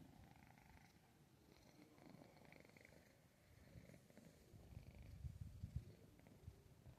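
Domestic cat purring faintly, the low flutter growing a little louder about halfway through.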